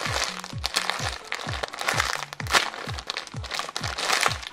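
Background pop music with a steady electronic beat: deep kick drums falling in pitch several times a second, short bass notes and crisp percussion on top.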